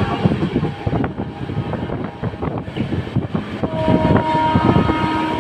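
Running noise of an LHB passenger coach on the move, a dense rattle with frequent knocks and clatters. A thin, steady high tone joins in about two-thirds of the way through.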